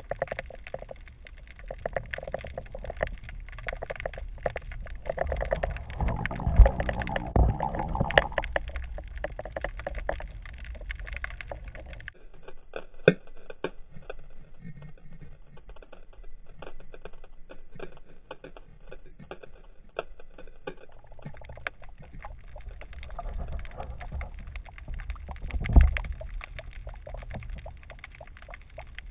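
Underwater sound picked up by a GoPro in its waterproof housing: a steady low rumble of water with frequent small clicks and a few heavier knocks, the loudest about six to eight seconds in and again near the end. For several seconds in the middle the sound goes duller.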